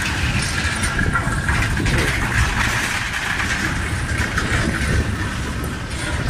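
Steady rumble and clatter of traffic crossing the steel pontoon bridge deck.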